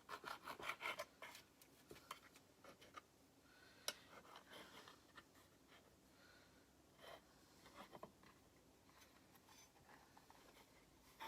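Faint scraping and light clicks of a knife cutting pie dough against a plastic pierogi maker, a quick run of scratchy strokes at first, then a sharp click about four seconds in and a few softer scrapes.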